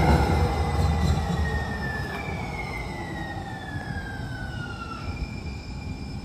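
Two-car Siemens light-rail train running past and away on street track, its low rumble fading over the first couple of seconds. High whines glide down in pitch as it draws off, leaving a fainter steady whine near the end.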